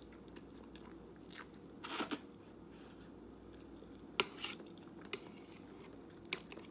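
Close-up mouth sounds of a person eating noodles in a cheesy sauce: soft wet chewing with scattered smacks and clicks, a louder cluster about two seconds in and a sharp click a little after four seconds.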